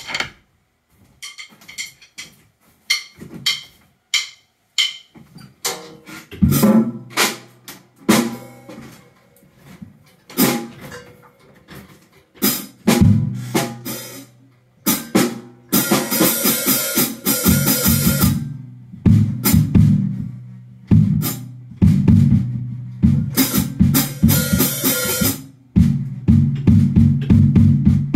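Pearl Roadshow acoustic drum kit with Evans heads and Zildjian and Sabian cymbals, played freestyle with sticks. A few sparse light strokes come first, then about six seconds in it builds into full, dense playing on snare and bass drum, with stretches of ringing cymbal crashes around the middle and again near the end.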